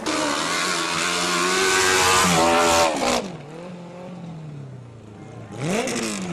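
Motocross bike engine held at high revs for about three seconds, then the revs fall away; near the end it is blipped once, the pitch shooting up and dropping again.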